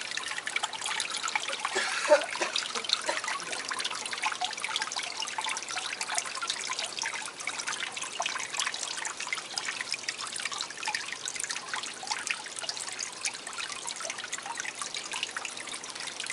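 Small garden water feature trickling and splashing steadily into a pond, a continuous patter of fine drops.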